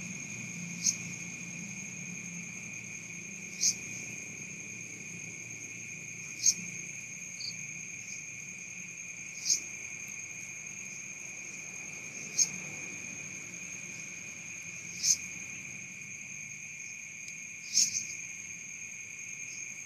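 Night insects chirring steadily at two high pitches, with a sharp, loud chirp repeating about every three seconds.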